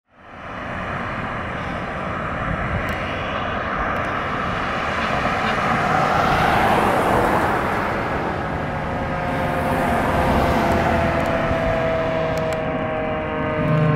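Seagrave fire engine approaching on an emergency response: a steady roar of engine and warning devices that starts abruptly, swells and eases twice, with a slowly falling tone near the end as the truck draws near.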